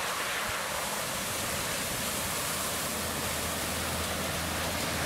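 Pickup truck ploughing through floodwater: a steady rush of splashing water from its bow wave, with a low engine hum coming in about halfway through as it draws near.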